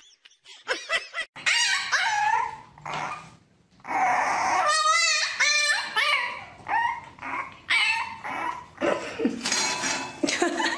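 A puppy whining and yipping: a string of high, wavering cries with short breaks between them, starting about a second and a half in.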